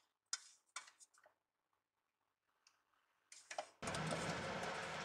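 Wooden spatula clicking and scraping against a stainless steel pan while stirring semolina roasting in ghee: a few light taps in the first second and a half, then near quiet. About four seconds in, a steady hiss starts abruptly and stays.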